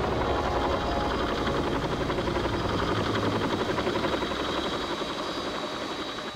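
UH-1 Huey helicopter running up close, a rapid, even beating of the rotor blades over a steady high turbine whine. It eases slightly near the end, then cuts off.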